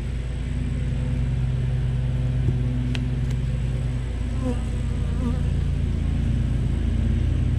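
Honeybees buzzing around an open hive: a steady low hum, with a few bees flying close past the microphone around the middle.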